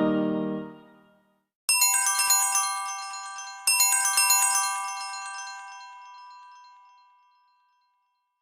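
Samsung Galaxy phone alert tone: a bright, glockenspiel-like chime melody in two phrases about two seconds apart, each ringing out and slowly fading. It follows the fading tail of the previous tone.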